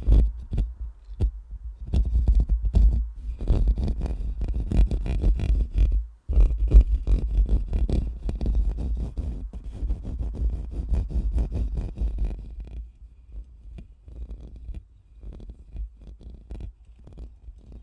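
A microphone being scratched and brushed close up: rapid rubbing strokes against the mic with a heavy low rumble from the handling. There is a brief break about six seconds in, and the strokes turn softer and sparser after about twelve seconds.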